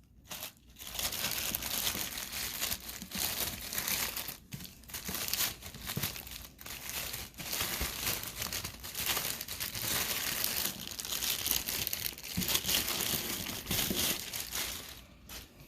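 Plastic seal wrap on a headphone box being torn and peeled off, crinkling almost continuously with a couple of brief pauses.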